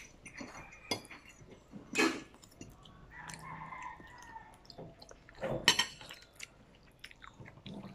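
A child eating black bean noodles with a fork from a plate: chewing and slurping, with a few sharp clicks of the fork against the plate, the loudest about two seconds in and near six seconds.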